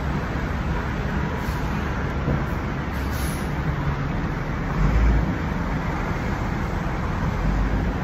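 Steady city traffic and road noise heard from the open top deck of a moving double-decker tour bus, with a brief louder low rumble about five seconds in.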